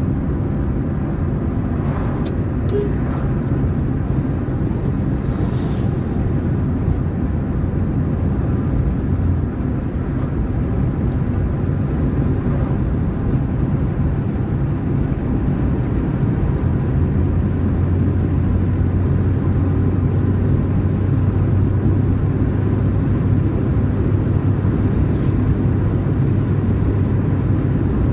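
Car driving along a road: a steady engine hum over a continuous low road rumble, with a few light knocks about two to three seconds in.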